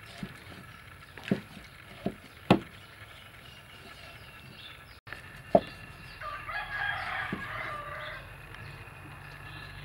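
A cleaver cutting pork belly on a round wooden chopping board, with a few sharp knocks of the blade on the wood; the loudest come about two and a half and five and a half seconds in. A rooster crows once in the background, from about six to eight seconds in.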